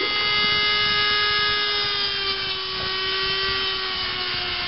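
Dremel rotary tool with an abrasive sanding drum grinding out the rough edge of a plasma-cut hole in a steel plate. The high motor whine runs steadily and sinks slightly in pitch as the drum bears on the metal, over a rough grinding hiss.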